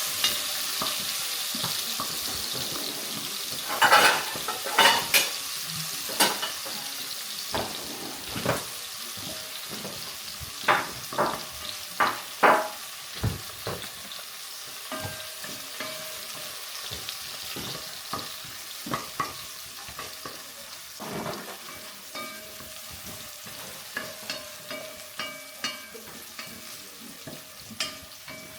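Vegetables sizzling in a hot frying pan, the sizzle slowly dying down, while a utensil stirs them with repeated sharp clicks and knocks against the pan.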